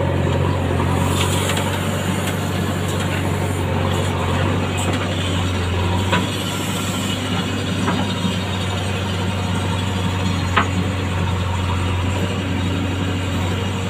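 JCB backhoe loader's diesel engine running steadily, heard close up from the operator's seat while the backhoe arm digs. A few sharp metallic knocks from the arm and bucket, the loudest about ten seconds in.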